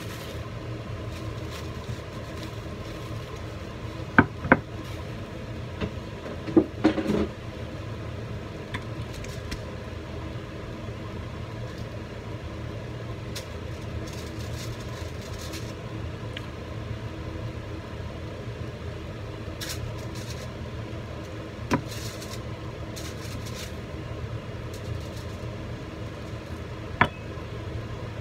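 A steady low hum runs underneath a handful of short, sharp knocks or clinks: two close together, a quick cluster a couple of seconds later, then two single ones far apart.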